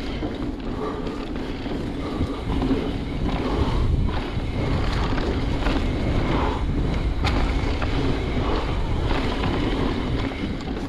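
Wind rushing over the microphone and mountain bike tyres rolling over a dirt trail at speed, a steady rumble with a few small knocks.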